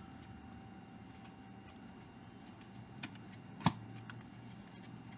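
Baseball trading cards being handled and flipped through: faint rustling with a few light clicks and one sharper snap a little past halfway.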